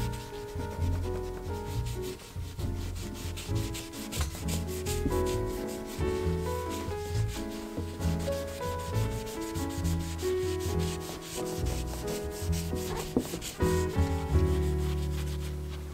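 Quick back-and-forth rubbing strokes of a gloved hand scrubbing the steel face of a freshly electro-etched axe head, which stop near the end.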